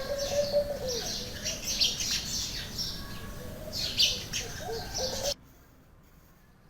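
Birds chirping and calling in a busy jumble, cutting off abruptly about five seconds in.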